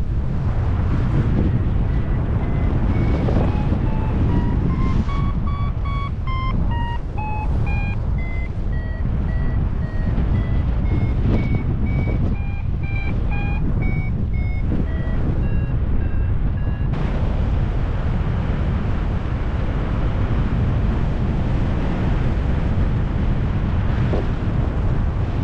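Paragliding variometer beeping in short tones that step up and then back down in pitch as the climb rate changes, over steady wind rushing on the microphone. The beeping stops about two-thirds of the way through, leaving only the wind.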